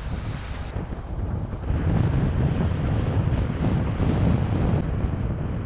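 Wind buffeting the microphone over ocean surf, a steady low rumble that gets louder about two seconds in.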